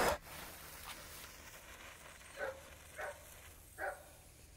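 Three faint dog barks, about half a second to a second apart, after a brief rush of noise right at the start.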